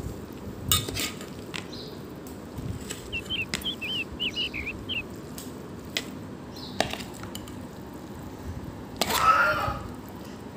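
A spoon clinking and scraping against a metal pot while cooked rice is mixed into tomato masala: a few sharp clicks, and a longer, louder scrape about nine seconds in. A run of short high chirps is heard around three to five seconds in.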